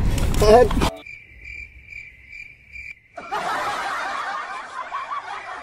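Cricket chirping over a sudden hush, about three chirps a second for two seconds, typical of the 'awkward silence' cricket sound effect, followed about three seconds in by a burst of laughter.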